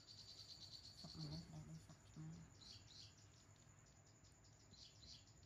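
Faint, high-pitched chirping: a rapid trill for about the first second and a half, then short chirps twice more.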